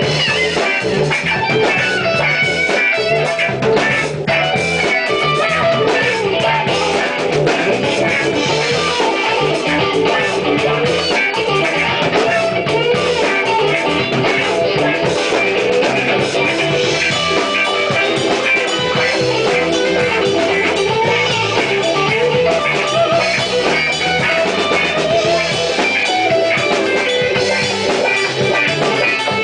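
A rock band playing live together: electric guitar, bass guitar and drum kit in a loud, steady passage.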